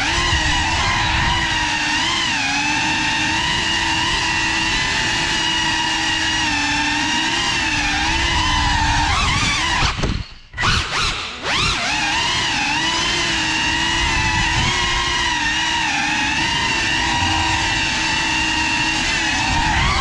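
GEPRC Cinelog35 6S cinewhoop's brushless motors and ducted propellers whining steadily, the pitch bending up and down with throttle. About halfway through, the throttle is chopped and the sound falls away for about a second. It then punches back in with a couple of quick surges and settles into the steady whine again.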